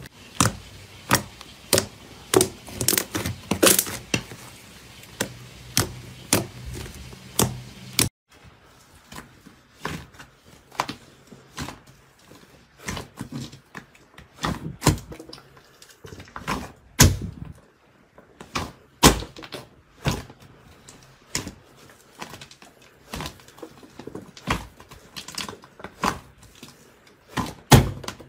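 Hands pressing and squeezing slime, giving a run of sharp, irregular clicks and pops as trapped air is squashed out. About eight seconds in the sound cuts to a thick, soft slime being kneaded in a bowl, with the pops coming more sparsely.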